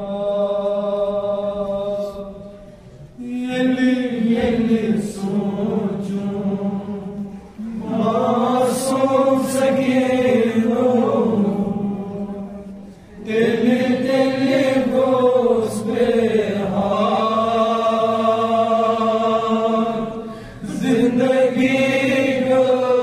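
Kashmiri noha, a Shia mourning lament, chanted unaccompanied by a man's voice. The lines are long and drawn out, with short breaks between them.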